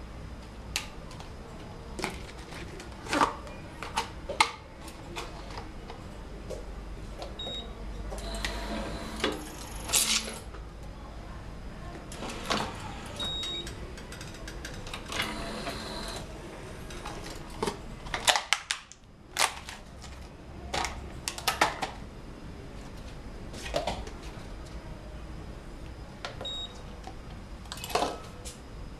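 Electric cup sealing machine for bubble tea running a sealing cycle: two stretches of motor whirring, a little under two seconds each, amid a string of sharp mechanical clicks and clunks, with a few short faint beeps. There is another clunk near the end as the cup tray is handled.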